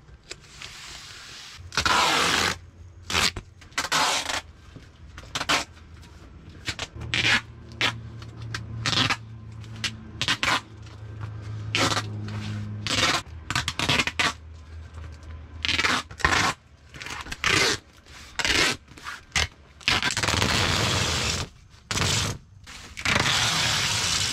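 Duct tape being ripped off the roll in many short strips and a few longer pulls near the end, and pressed down onto a crinkling duct-tape hammock sheet.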